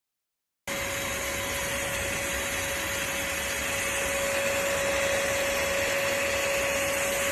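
Russell Taylors Vortex cordless vacuum cleaner with a 500 W brushless (BLDC) motor running steadily: a dense rushing whoosh of air with a steady whine. The sound cuts in abruptly a little under a second in.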